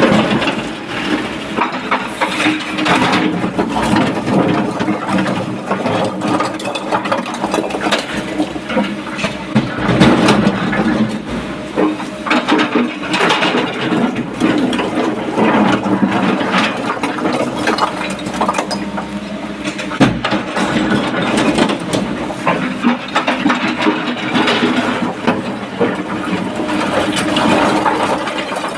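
Excavator diesel engine running under work, with frequent irregular clanks and knocks from the machine working, and sharper strikes about ten seconds in and again about twenty seconds in.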